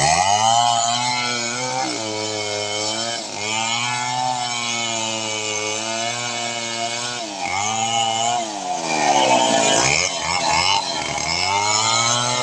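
Small two-stroke chainsaw running at high speed, its pitch dropping and climbing back several times.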